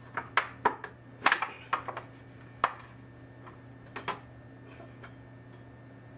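Light metallic clicks and taps of a thin sheet-metal heat shield being worked into place behind a copper pipe, most of them in the first three seconds and a couple more about four seconds in. A steady low hum runs underneath.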